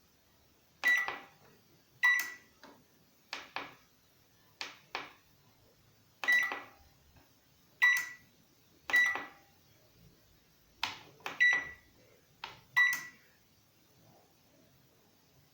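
Microwave oven control buttons clicking as they are pressed, most presses answered by the oven's short electronic confirmation beep, which shows the input registered. About seven beeps come at irregular intervals, with a few clicks that get no beep.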